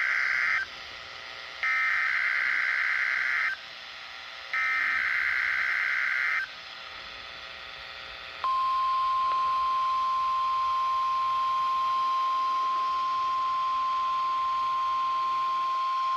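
NOAA Weather Radio weekly test signal. Three short bursts of warbling SAME header data, each about two seconds long and about a second apart, the first already under way. About eight seconds in, the steady single-pitched 1050 Hz warning alarm tone comes on.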